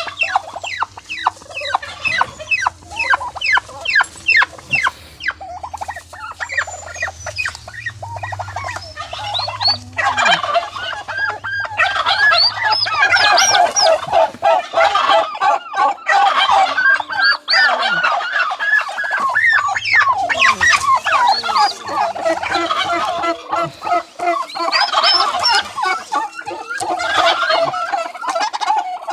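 Brooding turkey hens calling loudly and without pause at the nest, fierce at being disturbed, mixed with the high peeping of newly hatched turkey poults. It opens with a rapid run of sharp notes, then turns into dense, overlapping calling.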